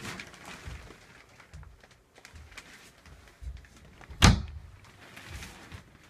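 A travel trailer's interior door shutting with one sharp, loud knock about four seconds in, amid softer low thumps of handling and steps.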